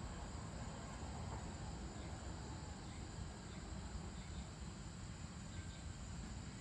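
Evening outdoor ambience: insects chirring steadily over a low, even rumble.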